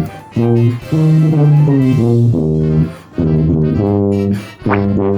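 Background music: a jazzy tune led by brass, played in short phrases with brief pauses between them.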